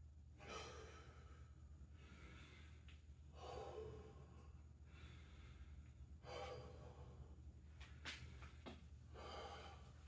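Faint, heavy breathing of a man catching his breath between jump-rope sets, a deep breath about every three seconds.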